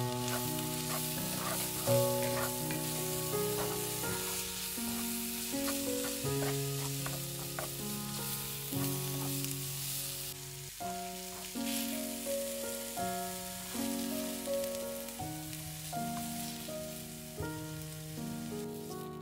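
Food frying in oil in a pan, a steady fine sizzle that eases about halfway through. An instrumental melody of held notes plays over it.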